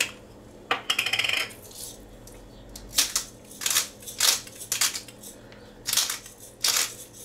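Hand pepper grinder being twisted to grind peppercorns, making a series of short gritty crunching bursts, some in quick runs.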